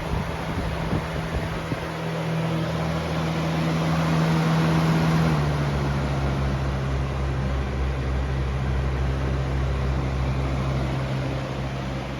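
Lasko 3723 box fan running on high speed: a steady rush of air over a low motor hum. The air noise swells around four to five seconds in, and just after that the hum steps down to a lower pitch.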